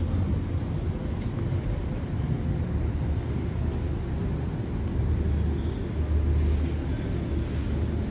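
Steady low rumble of city traffic, with no single event standing out.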